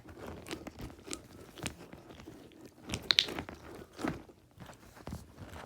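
Fidget toys being handled, giving irregular crunching, crackling clicks, with a louder cluster about three seconds in.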